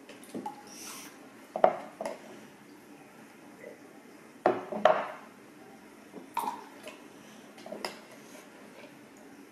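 Hard plastic measuring cups and a plastic jug being handled, knocking and clattering against the table and each other in a few separate bumps, the loudest about a second and a half in and around the middle.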